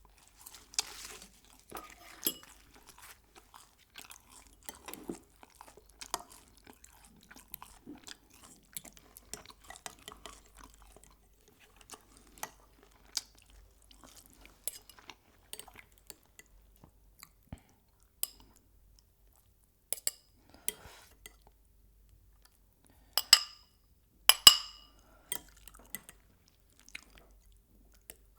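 Close-miked eating: wet chewing with crunchy crackles and small clicks, broken by two sharp, ringing clinks of tableware about four-fifths of the way through.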